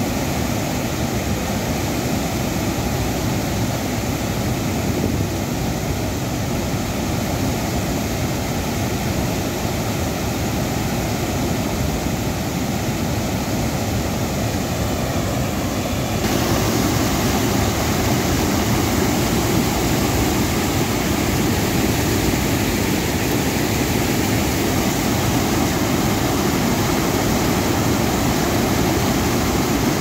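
Floodwater from a full lake spilling over its surplus weir, a continuous rush of churning, falling water. It gets louder about halfway through.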